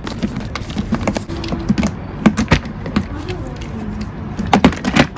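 Scattered clicks and knocks as a screwdriver and hands work the plastic side cover off a generator, with a few sharper knocks about two seconds in and again near the end.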